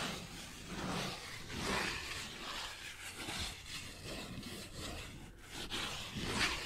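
Close-miked cardboard packaging of Bee's Wrap food wraps being handled and rubbed by fingers: a soft rustling that swells and fades several times.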